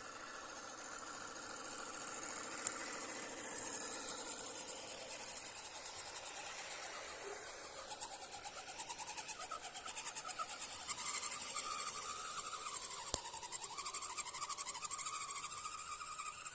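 1:10 scale RC rock crawler's electric motor and geared drivetrain whining as it drives and climbs, the pitch rising and falling with the throttle, over a steady high-pitched hiss.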